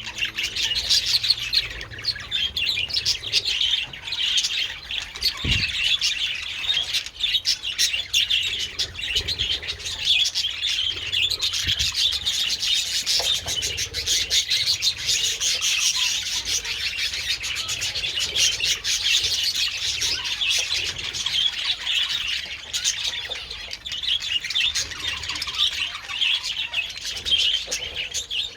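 A flock of budgerigars chattering and chirping continuously, many birds at once. One brief low thump about five seconds in.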